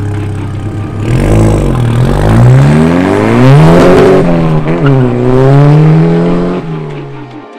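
Volkswagen Golf GTI MK6's turbocharged four-cylinder engine through an XForce performance exhaust, accelerating hard. The revs climb, drop sharply at gear changes about a second and a half in and again near the middle, then hold steady and fade near the end as the car pulls away.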